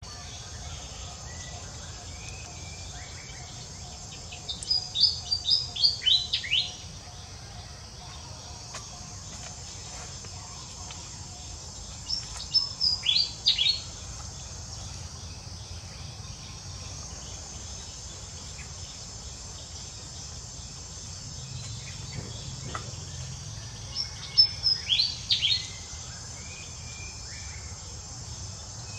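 A songbird singing a short phrase of quick, high chirps that fall slightly in pitch, three times, about ten seconds apart. Between the phrases there is a steady high insect drone.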